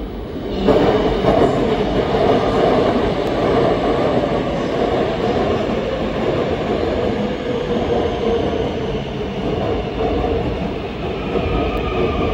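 Seoul Subway Line 2 electric train pulling into the station: a sudden, loud, steady rush of steel wheels on the rails and running gear as the cars go past, starting about a second in.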